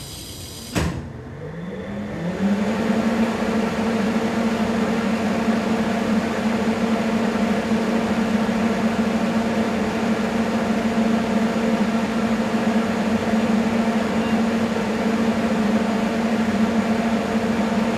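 An EDM machine powering on: a switch click just under a second in, then an electric motor spinning up with a rising hum. It settles after a couple of seconds into a steady whirring drone.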